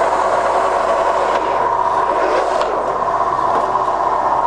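Scott 6250B×1000 centre lathe running with its spindle turning at 170 rpm: a steady mechanical running sound with a constant whining tone.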